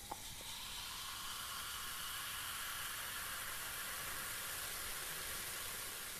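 Carbonated drink fizzing: a steady, high hiss that begins to fade near the end.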